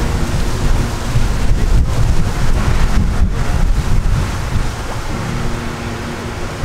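Heavy wind buffeting the microphone: a loud, fluttering low rumble with a hiss above it.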